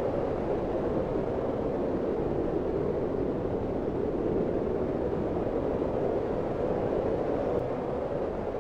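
Strong, steady wind of a blizzard, a continuous low rushing noise centred in the lower-middle range.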